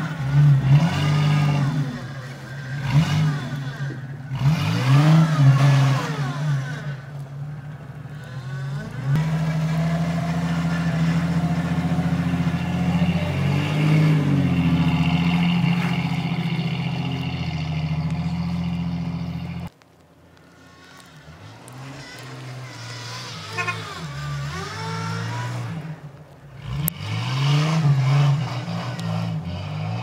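Old Jeep Cherokee's engine revving up and down again and again as it spins its wheels in snow. It is held at high revs for about ten seconds in the middle, drops off suddenly, then revs up and down again near the end.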